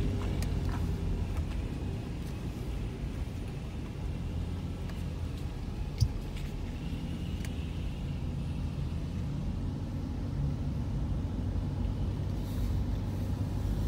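A car's engine and tyres rumbling steadily on asphalt, heard from inside the cabin while driving, with a single sharp click about six seconds in.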